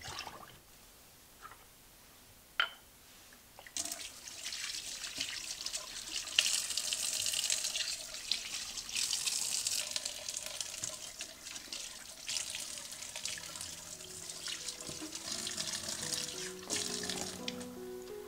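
Tap water running and splashing in a stainless steel sink as lemons are washed, starting about four seconds in after a few light clicks. Background music with plucked notes comes in over the water in the second half.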